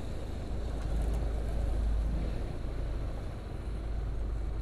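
Honda CBR150R motorcycle being ridden: a steady low rumble of wind on the microphone with the single-cylinder engine running underneath. The rumble swells about a second in and eases off again near the end.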